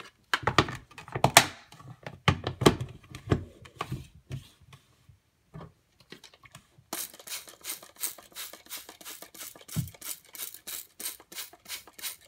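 Handling noise: a few loud knocks and clatter, then after a few quiet seconds a quick, even run of short noisy strokes, about five a second.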